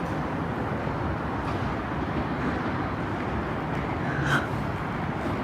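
Steady outdoor rumble of railway station background noise, with a brief high-pitched squeak about four seconds in.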